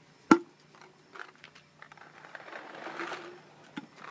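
A sharp click about a third of a second in, then paintballs rattling and rolling as they are tipped out of a plastic pod onto a metal mesh table.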